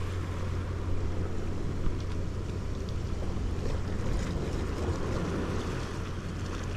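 Steady wind rumbling on the microphone over sea surf washing against reef rocks.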